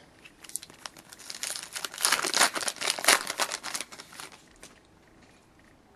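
A foil trading-card pack wrapper being torn open and crinkled by hand, a dense run of crackling that is loudest about two to three seconds in and dies away near five seconds.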